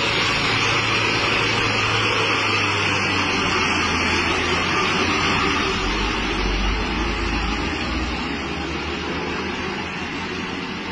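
Dump truck's diesel engine running as the truck pulls away up a wet road, growing fainter in the last few seconds.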